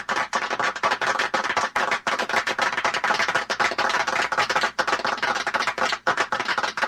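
A small group of people applauding, dense overlapping hand claps that keep up steadily.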